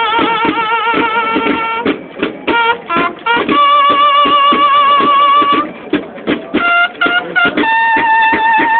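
Mexican banda de guerra, bugles and snare drums, playing a march. The bugles alternate long held notes, some wavering with vibrato, with runs of short clipped notes over rapid drum strokes. Near the end a long steady bugle note begins.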